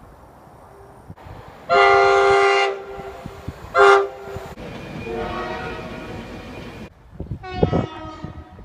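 Train horn sounding: a loud blast of about a second, a short blast a second later, then a fainter horn held for about two seconds that cuts off abruptly. Near the end another short blast sounds.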